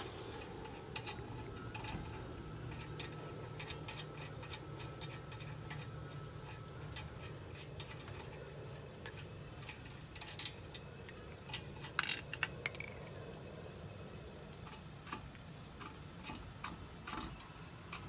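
Loosened lug nuts being unscrewed off the wheel studs: a run of light metallic ticks and clicks, with a cluster of louder clinks about twelve seconds in.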